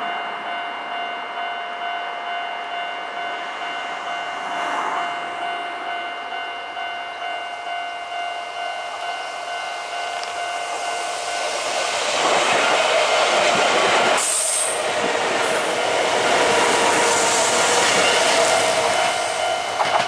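Japanese level-crossing warning bell ringing steadily, joined about twelve seconds in by the louder running noise of a red-and-white Kintetsu electric train approaching and passing on the rails.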